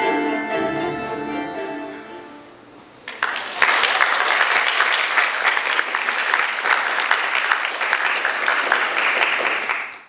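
Instrumental music fading out over the first two and a half seconds. About three seconds in, an audience starts applauding and keeps it up steadily.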